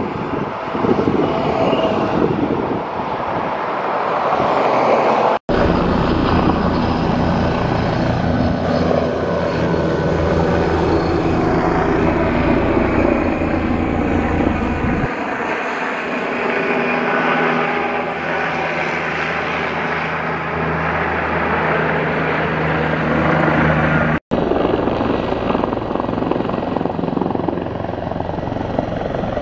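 Helicopters flying low overhead: a steady, loud rotor and engine sound with a higher whine, the pitch sliding down as one passes by. The sound cuts off abruptly twice, about five seconds in and near the end, where one helicopter's sound gives way to another's.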